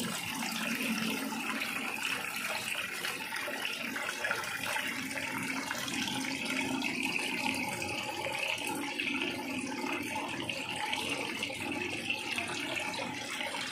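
Water-nutrient solution flowing through a hydroponics NFT channel: a steady trickle of running water.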